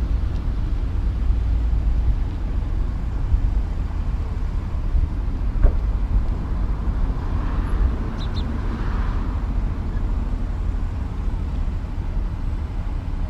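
Loaded Kenworth W900B log trucks rolling slowly past with a steady low diesel rumble. A single sharp click comes about five and a half seconds in.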